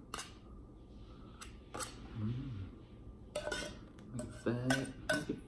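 Table knife scraping and clinking against the inside of a metal tuna can, scooping spicy red pepper tuna out in a series of sharp clicks and scrapes.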